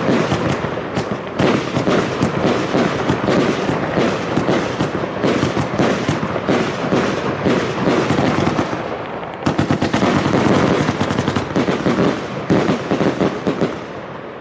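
Fireworks cake (battery) firing a rapid, dense stream of shots and bangs, with a short lull about nine seconds in, then another dense barrage that dies away near the end.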